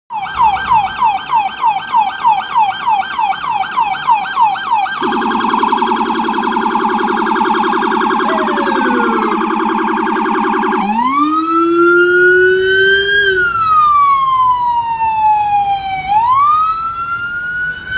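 FDNY fire apparatus siren running through its modes: a fast yelp of rising sweeps, about two and a half a second, for the first five seconds, then a very rapid warble with a lower tone beneath it. About eleven seconds in it switches to a slow wail that rises, falls and rises again.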